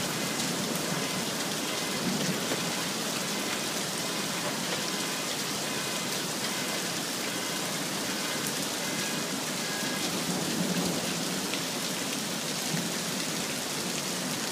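Hail and heavy rain pelting down steadily, with many sharp clicks of hailstones striking hard surfaces.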